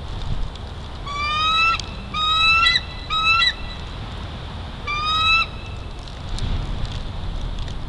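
Bald eagle calling: four drawn-out, slightly rising cries, three close together and a fourth about a second and a half later.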